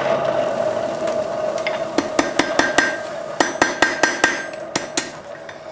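Blacksmith's hammer striking a hot chain link on the anvil to forge-weld the fluxed scarf joint: quick runs of ringing blows, about five a second, starting about two seconds in. Before them a steady hum fades out.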